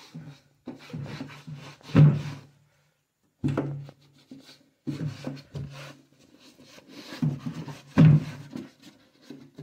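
A cloth rubbed by hand along the slats of a louvred window shutter, wiping without water, in about five separate strokes with short pauses between them.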